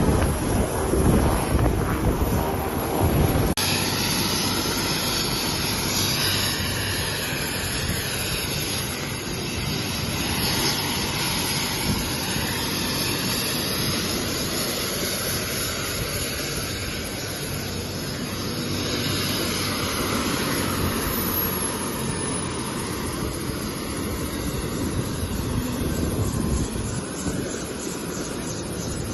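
Helicopter's turbine engine and rotor blades running with a steady, loud noise.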